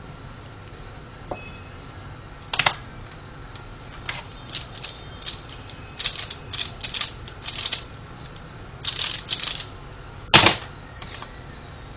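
Pyraminx puzzle being turned fast by hand: clusters of quick plastic clicks and clacks as its layers snap round, then a louder sharp knock about ten seconds in.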